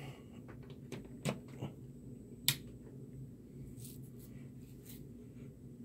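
A few light clicks and knocks from a power plug and cord being handled and pushed into a mains socket, the loudest about two and a half seconds in, over a faint steady low hum.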